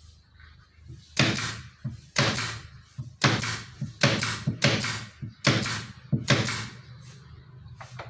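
Pneumatic nail gun firing nails into hardwood trim: about seven sharp shots over some five seconds, each with a short fading tail.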